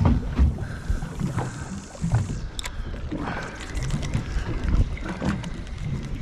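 Wind on the microphone and water sounds aboard a small boat at sea: an uneven low rumble with scattered knocks, one sharp click about two and a half seconds in.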